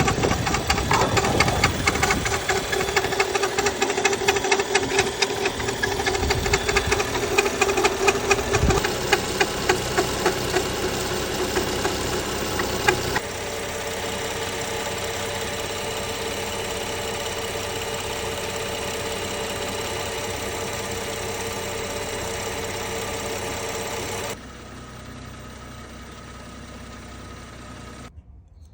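BMW N55 turbocharged inline-six running with a rapid ticking rattle from the front of the engine, a noise the owner traced to the accessory belt and its tensioner. About 13 seconds in the sound changes abruptly to a steadier, smoother run, and about 24 seconds in it drops quieter.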